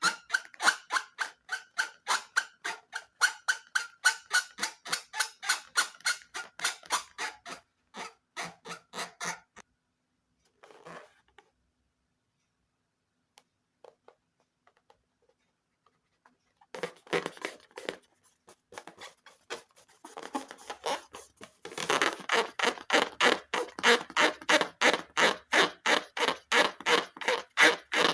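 Balloon slime squeezed and poked by hand in quick, regular squishy clicks, about five a second. The clicks stop for several seconds about a third of the way in, then start again and grow louder.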